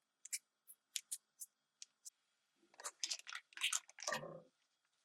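Butter melting in a sauté pan of olive oil, crackling faintly in scattered small pops, with a denser run of louder crackle and pan noise about three to four and a half seconds in.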